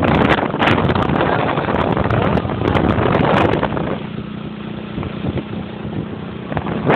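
Wind buffeting the microphone over the steady hum of a running vehicle engine. It is loudest for the first four seconds or so, then eases off.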